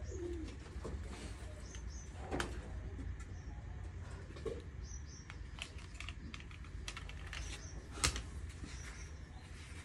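Light clicks and knocks of cables, plugs and a charger being handled and set down, a couple of them sharper, over a low steady hum.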